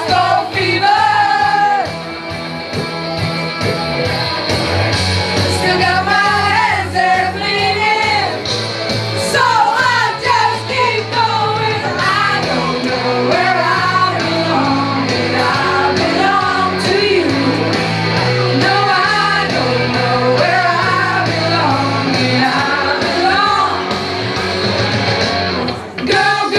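Loud amplified rock-style party music with people singing along into a microphone, the vocals partly shouted.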